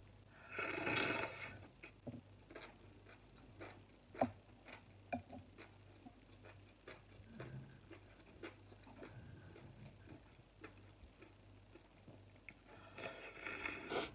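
A person slurping glass noodles from a bowl of hotpot soup, a long slurp about a second in and another near the end. In between come small wet chewing and mouth clicks.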